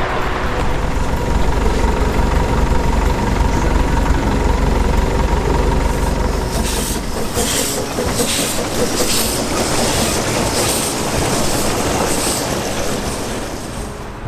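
Narrow-gauge train wagons rumbling on the track, then from about six seconds a steam locomotive getting under way: sharp hissing exhaust beats, about two a second, with steam from open cylinder drain cocks. The engine is the Ffestiniog Railway's 0-4-4T single Fairlie 'Taliesin'.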